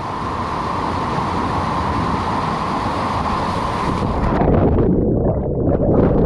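Steady rush of falling water, then about four seconds in the sound abruptly turns muffled and louder, a churning low rush of water heard from under the surface as the jumper plunges into the pool.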